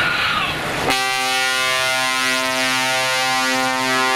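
Truck air horns sounding a loud, sustained chord of several notes held together. It starts abruptly about a second in, just after a brief falling whistle.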